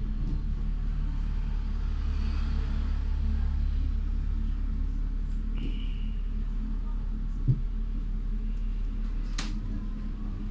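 Nuremberg U-Bahn DT1 car running along the track, heard from inside: a steady low rumble with a constant hum. A short high squeal comes about halfway through, a low knock a moment later, and a sharp click near the end.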